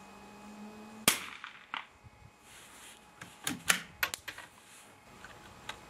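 A single shot from a BSA Century .22 Long Rifle bolt-action rifle, a sharp crack about a second in with a short ring after it. A few seconds later comes a quick run of metallic clicks as the bolt is worked to eject the spent case and chamber the next round.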